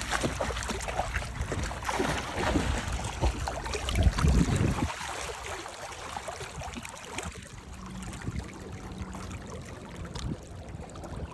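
A dog splashing and paddling through lake water, with water lapping and a louder low rumble about four seconds in.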